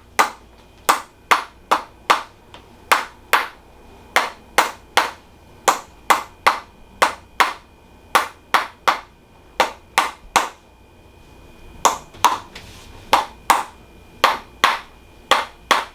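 Sharp, repeated taps of a hand-held chiropractic adjusting instrument delivered over the sacroiliac joint, about two to three a second and often in pairs, with a brief pause about two-thirds of the way through.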